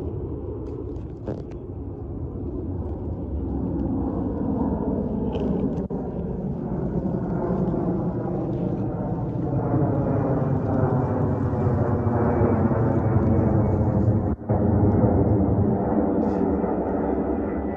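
Jet noise from a LATAM Boeing 767-300ER's twin turbofan engines as the airliner climbs overhead, a steady rumble growing louder. The sound briefly cuts out about fourteen seconds in.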